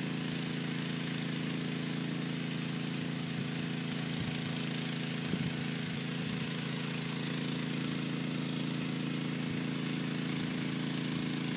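Sewer jetter's engine running steadily at a constant speed. A slight rise in hiss comes about four seconds in.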